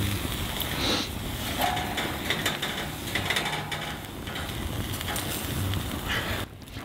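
Campfire burning under a grill rack: a steady rushing with scattered crackles, and some wind on the microphone.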